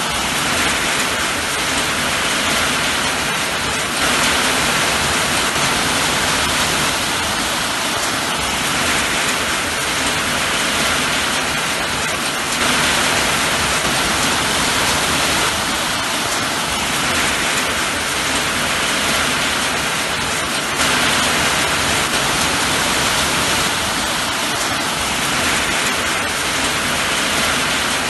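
Steady rain, a dense even hiss with no breaks, swelling slightly in loudness every several seconds.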